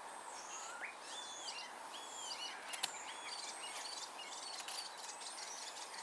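Small birds chirping repeatedly in short rising and falling calls, over faint scraping from a knife blade carving a wooden stick, with one sharp click a little under three seconds in.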